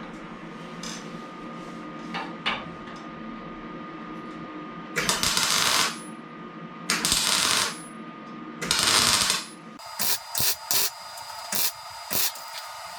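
Metalwork on a car body shell: three harsh bursts of about a second each, then a quick run of short crackles and clicks.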